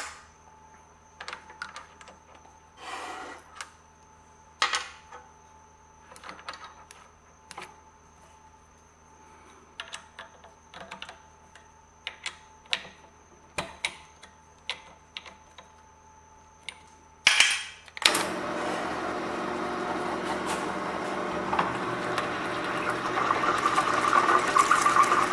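Scattered clicks and knocks as a countersink is changed in a drill press chuck. About two-thirds of the way in the drill press starts running, and a freshly sharpened 1-inch countersink cuts dry into aluminium, the cutting noise growing near the end.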